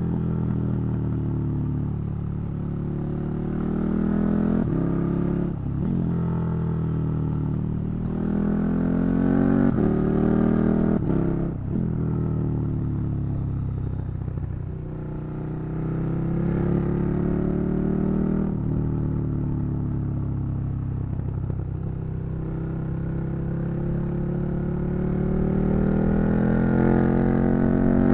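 KTM 1290 Super Duke R's V-twin engine under way, its note climbing and falling in pitch several times as the bike accelerates and eases off, with a few short breaks in the note along the way.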